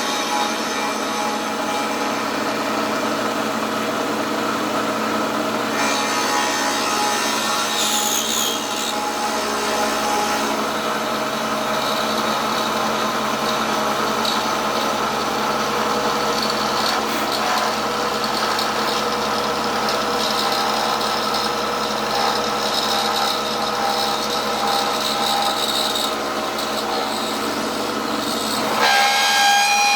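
Milling machine running, its cutter working through metal plate about 3/16 inch thick: a steady motor whine with a rasping cutting noise. About a second before the end the sound gets louder and its pitch changes.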